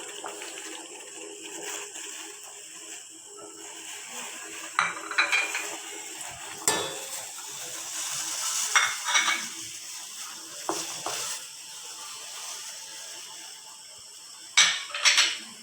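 Spoons and bowls clinking and tapping against a pot as curry leaves and spices are tipped into boiling water, a handful of scattered clinks over a steady faint hiss of the water on the boil.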